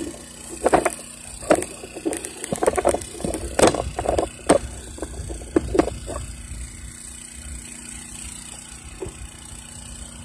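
A run of sharp clicks and knocks from hand tools and small metal parts being handled, thinning out after about six seconds, over a steady low rumble.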